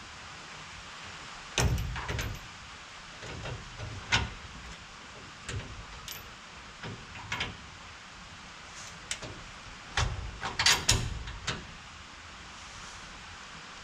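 Scattered metallic clinks and knocks of hand tools, sockets and wrenches, working on bolts under a car, with louder clanks about two seconds in and again around ten to eleven seconds.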